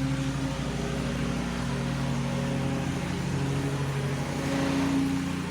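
Lawn mower engine running steadily, a continuous motor hum.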